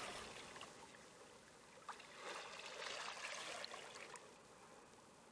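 Near silence: a faint, even hiss of background noise that swells a little for a couple of seconds in the middle.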